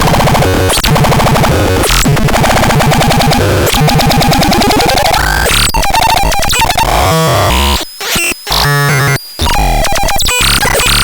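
Synthesizer sound demo: harsh, noisy electronic tones with fast pulsing. Around the middle a pitch sweeps upward, and later the sound cuts out briefly a few times before starting again.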